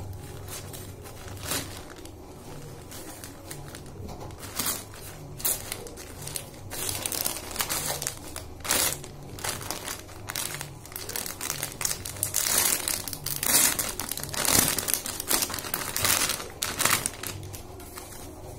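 Plastic packaging crinkling as a grey poly mailer bag and the clear plastic bag inside it are handled and opened. The crinkles come in irregular bursts, sparse at first and busiest in the second half.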